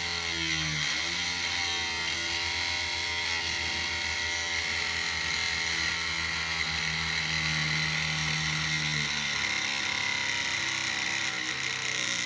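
Small DC motor of a homemade miniature motorboat running steadily with a high whine; a lower hum in it drops out about nine seconds in.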